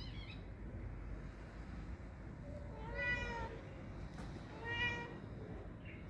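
Domestic cat meowing twice: a longer meow about three seconds in and a shorter one about a second and a half later.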